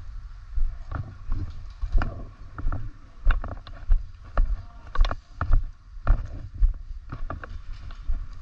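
Footsteps of a player moving quickly over tarmac, about two strides a second, each with a dull thump as the body-worn camera jolts.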